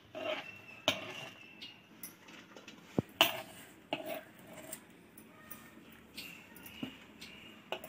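A few light knocks and clinks of a utensil against a mixing bowl, with soft rustling, as shredded cabbage is added.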